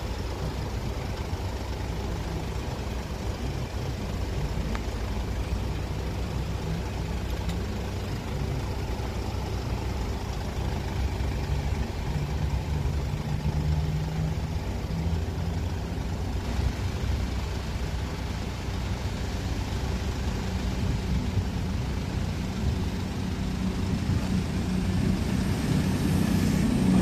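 A waiting van's engine idling steadily close by. An approaching train grows louder near the end.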